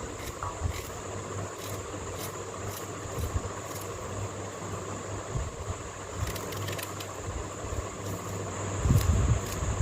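Crickets chirping in an even rhythm, about two or three chirps a second, over a steady high insect drone. A low steady hum runs underneath, and wind rumbles on the microphone near the end.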